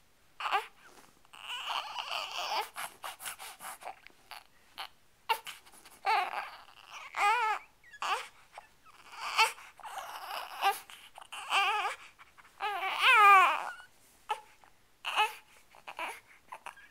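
Young infant fussing and crying in short, wavering wails, with breathy straining grunts and gasps between them, while he strains to lift his head lying face-down. The loudest wail comes about thirteen seconds in.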